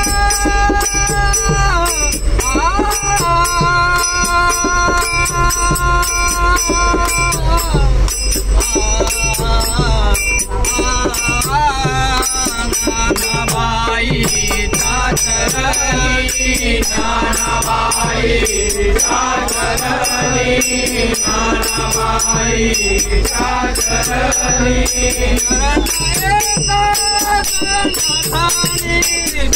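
Men singing a Marathi devotional abhang in the train compartment. Small brass hand cymbals (manjira/taal) are struck in a steady beat under the voices, and the melody moves between long held notes and quicker bending phrases.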